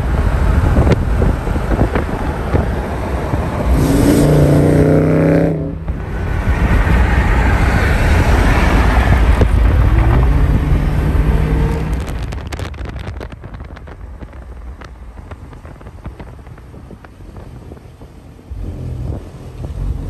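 Dodge Charger V8 engines at highway speed, heavy with rumble and rushing noise. A steady engine note swells about four to five seconds in, and a rev rises around eleven seconds. The sound then drops to quieter road noise and grows louder again near the end.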